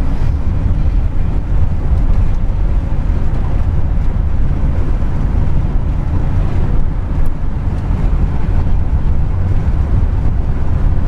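Steady low rumble of road and wind noise from a car driving along a highway.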